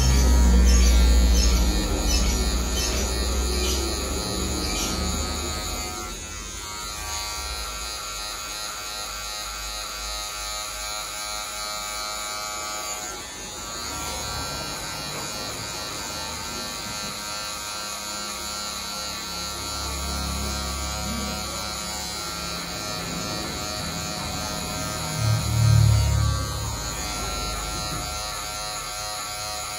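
Electric hair clippers running steadily through a fade haircut, with low bumps near the start and again near the end.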